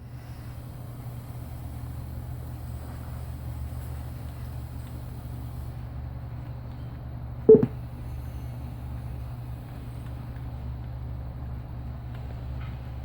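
Computer making a loud, steady low hum, with one brief, much louder tone about seven and a half seconds in.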